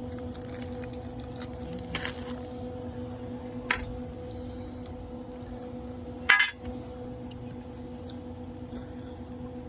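Three brief metallic clinks, the loudest about six seconds in, over a steady low hum.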